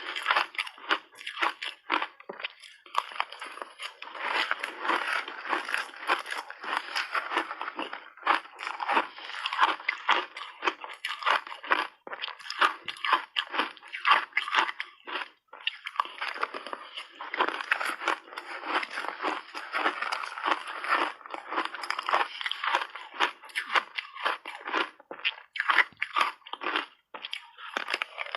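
Close-up biting and chewing of refrozen shaved ice, a dense run of crisp, irregular crunches with brief pauses between mouthfuls.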